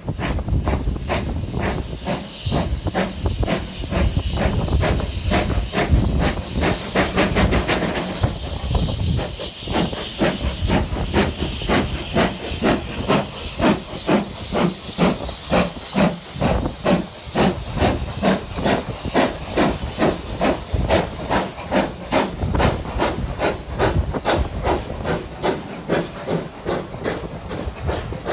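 Steam locomotive 46521, an Ivatt Class 2MT 2-6-0, pulling a passenger train past at close range. A steady rhythm of exhaust beats, about two a second, runs over a loud hiss of steam from its open cylinder drain cocks. Near the end the coaches roll past.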